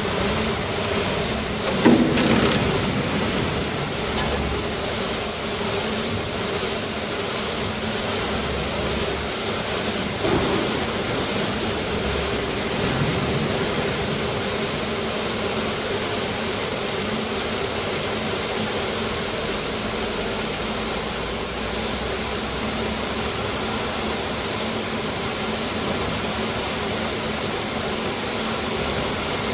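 Tape slitting and rewinding machine running: a steady high hiss over a low hum, with a short knock about two seconds in and another about ten seconds in.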